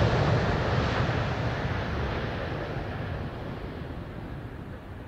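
Boeing 737-800's CFM56-7B jet engines at takeoff power on the runway roll, a steady roar that fades as the airliner pulls away, its higher hiss dying off first.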